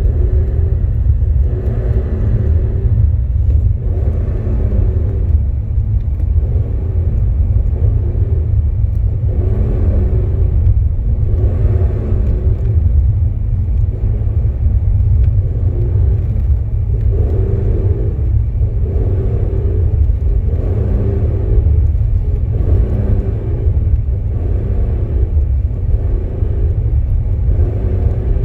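BMW 330Ci's M54 straight-six idling with a steady low rumble, while a whirring metallic noise from the clutch and single-mass flywheel comes and goes every two to three seconds. The owner describes it as the noise heard at the point of clutch disengagement, with slight vibration in the clutch pedal.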